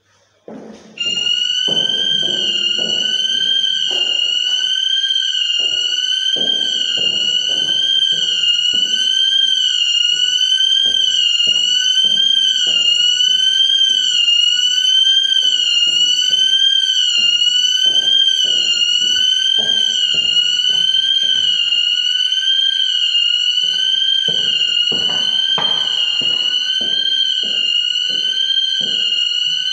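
Electronic alarm sounding continuously: a loud, high warbling tone that sweeps up and down about once a second. It starts abruptly about a second in. Irregular low knocks and thuds run beneath it.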